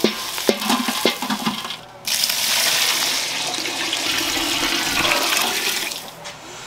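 Hot sautéed greens tipped from a metal pan into a stainless steel pot, with a few sharp metal clinks and scraping. About two seconds in, a steady gush of water is poured from a bowl into the pot, stopping about six seconds in.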